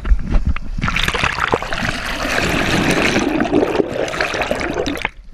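Seawater rushing and bubbling over the microphone as it is plunged beneath the surface, starting about a second in and cutting off suddenly near the end as it comes out.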